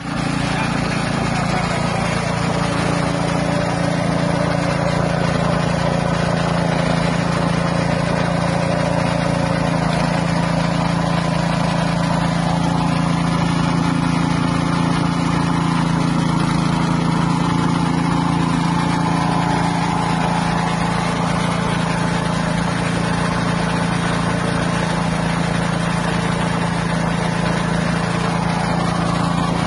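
Small engine running steadily at one constant speed, driving a floating fish-feed pellet extruder while it turns out pellets.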